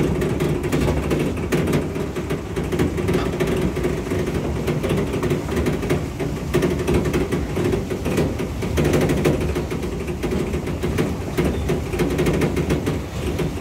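A vehicle driving slowly over a rough dirt track, heard from inside the cab: a steady low engine and road noise with frequent knocks and rattles from the bumpy surface.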